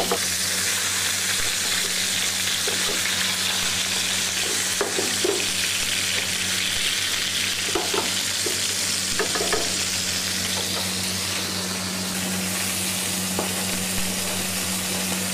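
Floured mahi-mahi fillets sizzling steadily as they fry in olive oil in a sauté pan.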